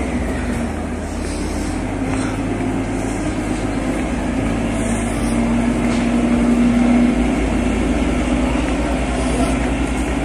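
Train engine idling: a steady low rumble with a hum that grows a little louder around five seconds in, then eases.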